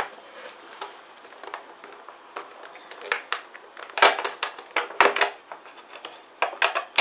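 Plastic tub of brynza cheese handled and its lid pried open: a series of sharp plastic clicks and crackles, the loudest about four and five seconds in.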